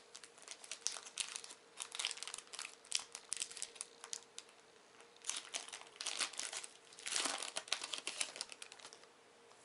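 A sealed trading-card booster pack wrapper crinkling and tearing as it is opened, in several bursts of crackling.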